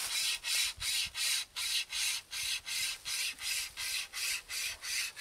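Hand-pulled toothed cable saw (a pocket "finger chainsaw") cutting through a tree branch, worked back and forth in quick, even strokes, about four a second, each stroke a scratchy rasp of teeth on wood.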